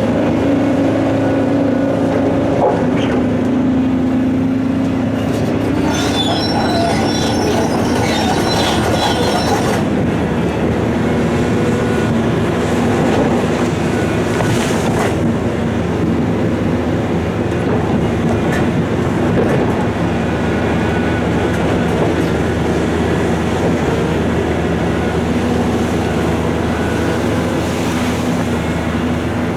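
Heavy diesel earthmoving machinery, a large excavator and a quarry dump truck, running steadily under load. From about six seconds in there are several seconds of high metallic squealing and scraping.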